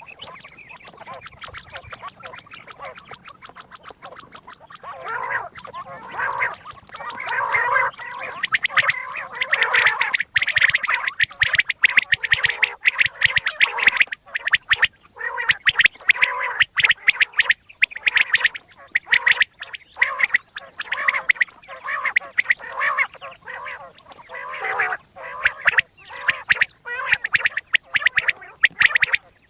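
Common quail calling: a dense, rapid run of harsh, clicking calls, quiet at first and much louder from about five seconds in, broken by short gaps. It is a quail call recording of the kind played to lure quail in wheat fields for hunting.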